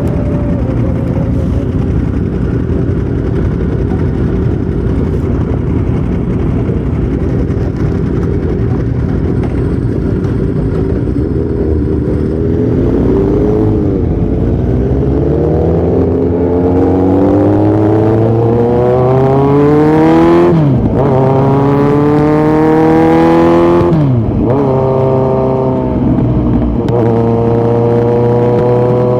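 2018 Kawasaki Z900's inline-four running through a Yoshimura muffler and Delkevic headers with no dB killer. For about the first twelve seconds it sounds low and rough; then the revs climb under acceleration. The pitch drops sharply twice, at two upshifts, before the engine settles at a near-steady pitch.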